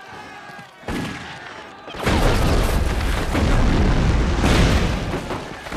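Artillery shell explosion in a war-film battle soundtrack: a loud blast about two seconds in with a deep rumble that carries on for several seconds. A shorter, fainter burst comes about a second in.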